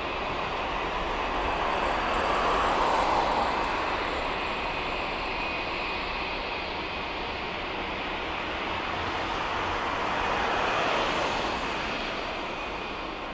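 Boeing 787-10 jet engines running as the airliner moves away along the runway: a steady rushing roar with a thin high whine. It swells about two seconds in and again near ten seconds.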